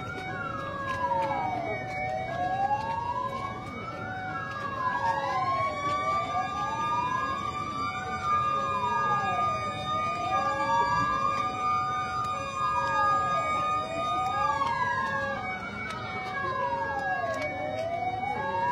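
Emergency vehicle siren wailing, its pitch sweeping slowly up and down about every four seconds. A second siren joins about five seconds in, holding a steady high tone for about ten seconds before dropping away.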